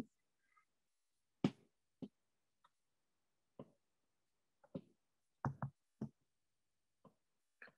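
Faint, sparse taps and clicks, about nine spread unevenly with silence between: a stylus and fingertips tapping on an iPad's glass screen while drawing and undoing strokes.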